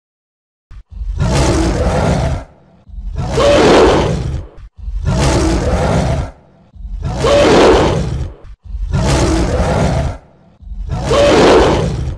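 Tiger roaring: six long roars in a steady rhythm, one about every two seconds, the first starting about a second in.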